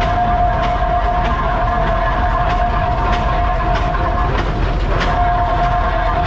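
Vintage oil tractor engines running slowly as they pass, with heavy exhaust beats about twice a second. A steady whistle-like tone sounds over them and drops out briefly a little after four seconds in.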